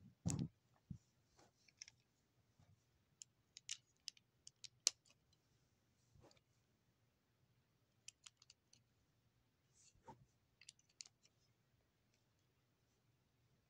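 Plastic Lego bricks clicking and clattering as a small Lego truck is handled: scattered sharp clicks in a few quick clusters, with a dull thump right at the start.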